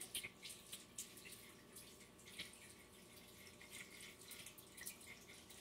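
Faint water at a kitchen sink as hands are rinsed: irregular small splashes and drips.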